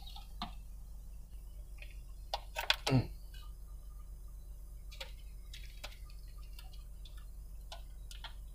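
Plastic clicks and knocks of a single-DIN car head unit being pulled from the dash and its wiring-harness plugs being handled, with a cluster of sharper knocks about three seconds in and a few lighter ticks afterwards.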